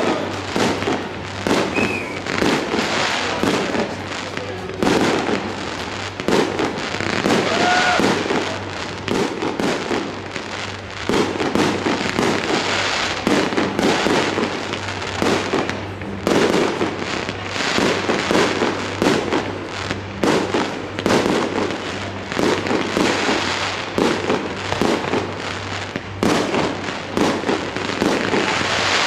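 Fireworks display firing continuous rapid volleys: multi-shot batteries launching shot after shot, with bursts bangs and crackle overlapping one another.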